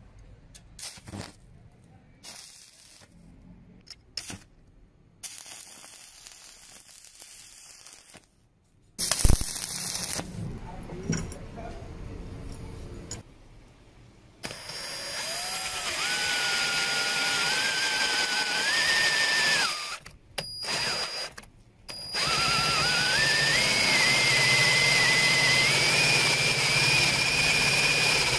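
A few scattered knocks and clicks and one sharp bang, then an electric drill runs in two long spells, turning a homemade welded-steel circle cutter into a board. Its motor whine climbs in steps as the cutter bites.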